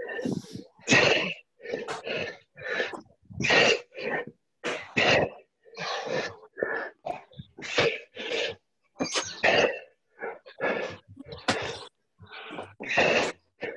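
A person breathing hard with exertion: short, forceful huffs of breath, a little more than one a second.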